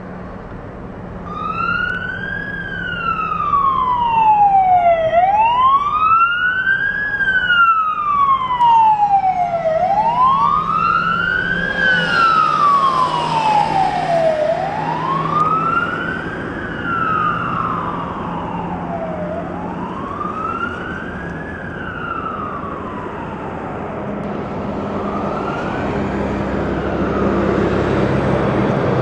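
Siren on a fire department's Ford F-450 brush truck wailing as it responds, the pitch rising and falling slowly about every five seconds. The wail fades away as the truck drives off, leaving traffic noise near the end.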